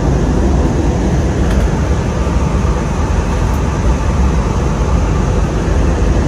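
Steady cabin noise of an airliner in flight, the engines and rushing air heard from a window seat as a deep, even rumble with a hiss over it.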